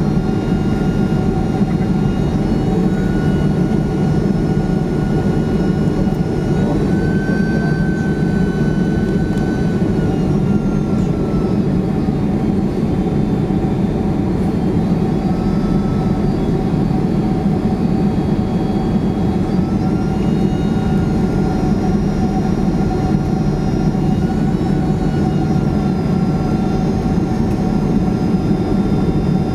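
Boeing 767-300ER cabin noise beside the wing engine: a steady jet engine rumble and rush with a constant hum and a thin whine that drifts up and down in pitch now and then.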